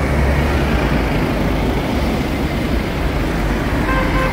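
Road traffic noise with engines running, and a short car-horn toot near the end.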